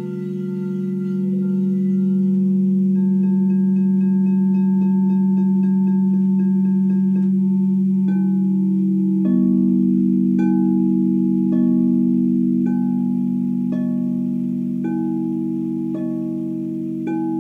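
Frosted quartz crystal singing bowls ringing in long, steady, overlapping tones. From about eight seconds in, a bowl is struck softly about once a second, each strike adding a fresh ringing note over the sustained hum.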